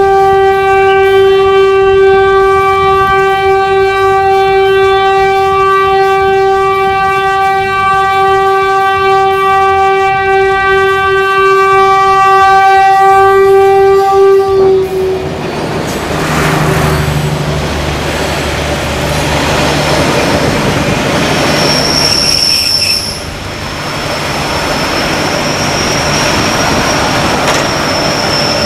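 Diesel locomotive horn sounding in one long, steady, loud blast of about fourteen and a half seconds, a warning to people standing too close to the track. The horn then stops and the train runs past with a heavy rumble and wheel clatter, and from about twenty seconds in a high, steady squeal of wheels or brakes as it slows along the platform.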